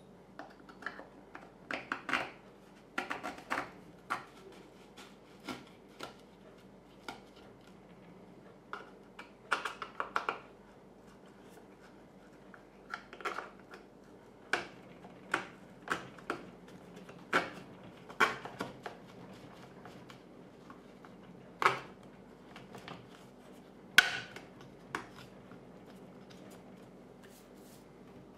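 Kydex cheek-rest shell being pushed and worked by hand onto a plastic rifle stock: scattered clicks, taps and scrapes of hard plastic on plastic, the sharpest a few seconds before the end.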